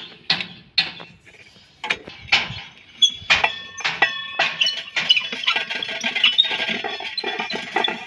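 Plastic clicks and squeaks from a JCB backhoe's air pre-cleaner being handled: a few sharp knocks as its lid is wiped with a rag, then, from about three seconds in, a run of squeaky rubbing and clicking as the cap is twisted on its bowl.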